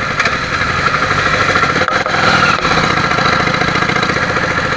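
Motorcycle engine running as the bike pulls away from a standstill and gathers speed, a little louder about two seconds in.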